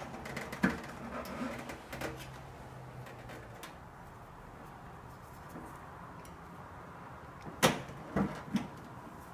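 Sheet-metal body panel of a Londinium I lever espresso machine being worked loose by hand: a few small clicks and knocks, with a sharp click about three quarters through followed by two lighter knocks.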